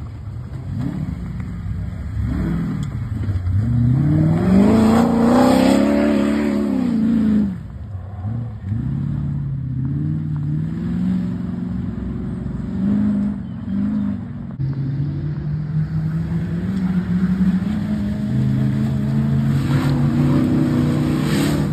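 Engine of an old Land Rover comp safari racer revving hard through mud: its pitch climbs to a peak about five seconds in and drops away, then it runs on at steadier, slowly rising revs. The sound breaks off abruptly twice.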